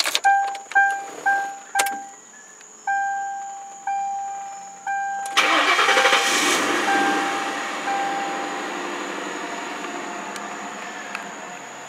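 Key clicking into the ignition of a 2004 Mercury Marauder, the dashboard warning chime dinging quickly four times and then three longer tones. About five seconds in, the 4.6-litre DOHC V8 starts right up, loudest at first and then settling down toward idle.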